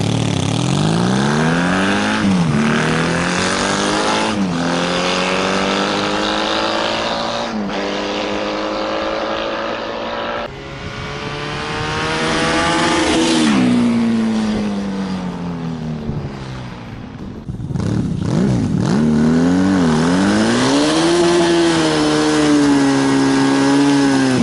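Honda Magna 750 V4 motorcycle engine accelerating hard through the gears, the pitch climbing and dropping back at each upshift, then falling as it eases off. Later the engine revs high and is held there while the rear tyre spins in a smoky burnout, cutting off at the end.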